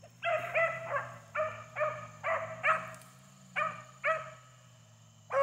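Beagle barking on a rabbit's trail: about nine short, high barks in two quick runs with a brief pause between. The barking means the hound has the rabbit's scent and is pushing it.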